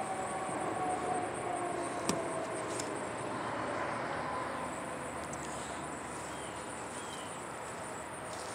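Outdoor ambience: steady high insect chirring over the faint hum of passing traffic, which drifts slowly down in pitch. There is one sharp click about two seconds in.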